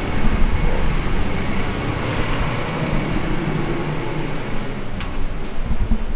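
Steady city street noise with traffic going by, with a low rumble throughout.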